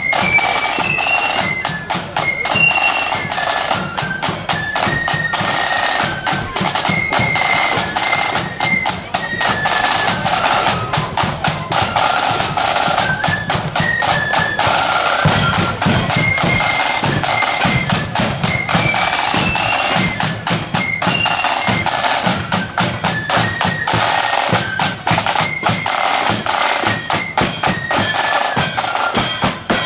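Marching flute band playing a tune: flutes carry a stepping melody over a dense run of snare-drum strokes and a bass-drum beat.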